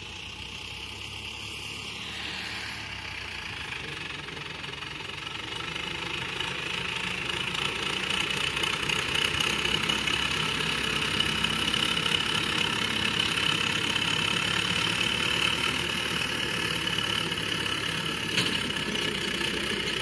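Tractor diesel engine running steadily under load as it pulls a tined plough through the field, growing louder over the first several seconds as it draws near, then holding steady.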